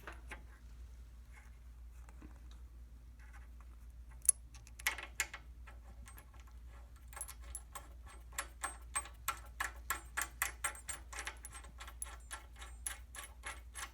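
A couple of metal clinks, then a ratchet wrench clicking steadily, about three clicks a second, as the bolt and lock washer are tightened down on the retaining washer of a tractor loader pin.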